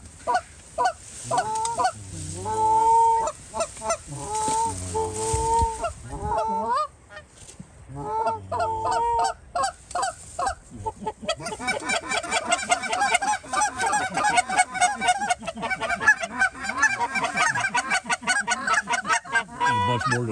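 Canada geese honking and clucking: loud, separate calls, some held and some clipped, for the first half, then from about eleven seconds a large flock honking together in a dense, overlapping chorus.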